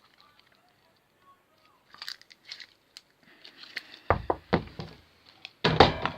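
Slime being squeezed and pulled by hand, giving scattered small crackling clicks that grow denser and louder after about four seconds, with heavier bumps and knocks near the end.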